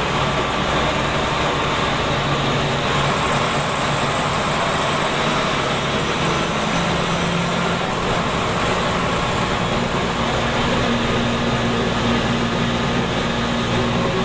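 Scania K93 bus's rear-mounted 9-litre six-cylinder DS9 turbo diesel running under way, heard from inside the passenger cabin over a steady wash of road noise. The engine note climbs higher about ten seconds in.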